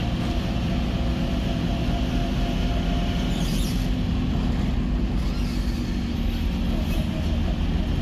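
Steady road noise inside a moving car's cabin: tyre rumble on the road surface with a low engine hum, holding an even level.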